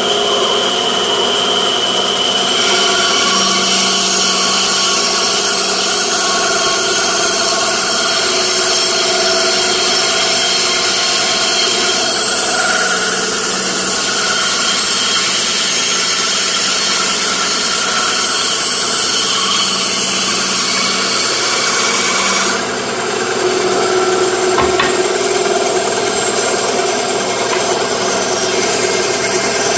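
Delta 10-inch benchtop bandsaw running steadily and cutting wood, its blade riding in shop-built ball bearing guides. The sound shifts about two and a half seconds in and dips briefly about three-quarters of the way through.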